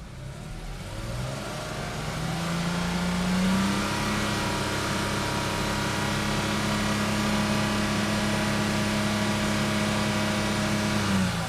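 1989 Porsche 911 3.2 Carrera's air-cooled flat-six revving up from idle over a couple of seconds, then held steady at just over 4,000 rpm for a static track noise test, and dropping back near the end.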